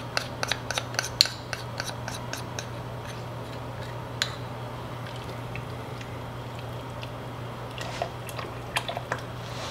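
Light clicks and taps of a small dish and fingers as bouillon is scraped into a pot of stock. There is a quick run of clicks for the first two seconds or so, then a few scattered taps near the end, over a steady low hum.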